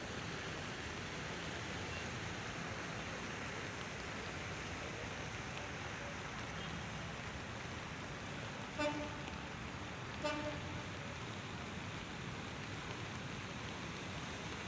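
Steady road-traffic noise with two short car-horn toots, about a second and a half apart, a little past the middle.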